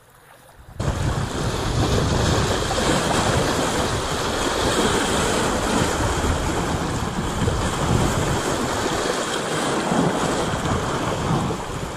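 Strong wind rushing over the microphone and choppy lake water washing against the shoreline rocks, a steady noise that starts suddenly about a second in.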